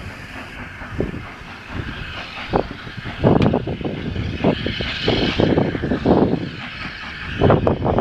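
Steam tank locomotive working a train, its exhaust chuffing in uneven beats over a steady rushing haze.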